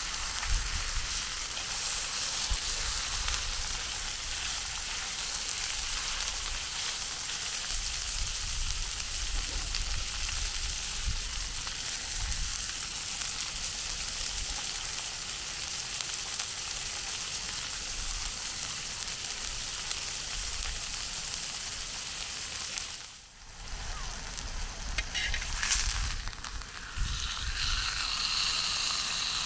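Food sizzling as it fries in a pan over a campfire: a steady frying hiss. It dips briefly about two-thirds through, then carries on with a few clicks.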